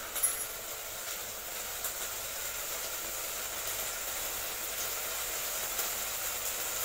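Brinjal, potato and onion frying in oil in a steel pot on a gas stove: a steady sizzle, with a brief knock just after the start.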